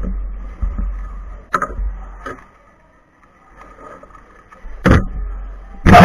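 Handling noise on a table-top camera: a low rumble with light knocks from hands and objects on the table, a sharp knock about five seconds in, and a louder burst of rubbing and knocking near the end as the camera is picked up and moved.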